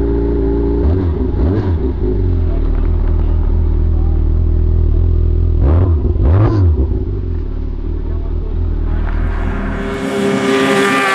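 Yamaha Apex snowmobile's 1000 cc engine with an aftermarket Bender exhaust idling, with two quick throttle blips about one and a half and six seconds in. Near the end it is running hard at high revs, its pitch falling as it passes.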